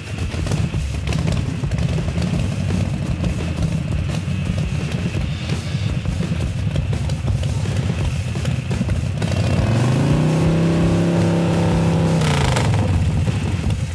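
Motorcycle engine sound effect with an uneven low rumble. About nine seconds in it revs up, holds a steady pitch for a couple of seconds, then drops back down near the end.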